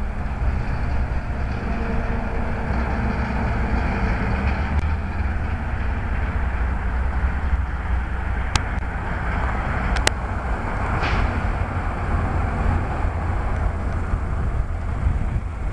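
Steady low rumble of street traffic with wind noise on the microphone. Two sharp clicks come about eight and a half and ten seconds in, followed shortly by a brief hiss.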